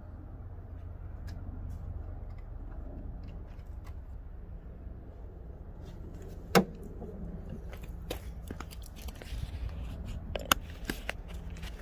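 Small clicks and rattles of plastic wiring clips and a harness being handled and pushed into place, over a low steady rumble. There is a sharp plastic click a little past halfway and another near the end.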